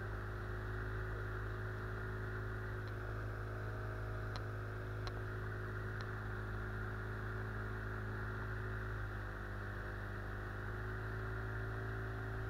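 Small boat motor pushing an inflatable boat upriver, running at a steady, unchanging speed with an even hum, and a few faint ticks a few seconds in.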